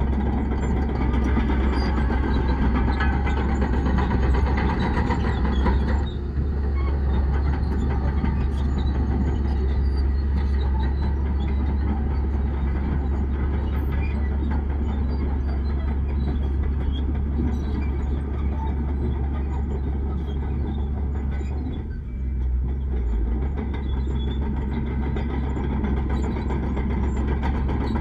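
Heavy diesel earthmoving machinery running steadily under load with a deep engine rumble; the higher part of the noise eases about a fifth of the way in, and the sound dips briefly near the end.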